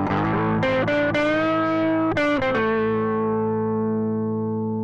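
Outro music: a few notes with pitch slides, then a final chord held and slowly fading.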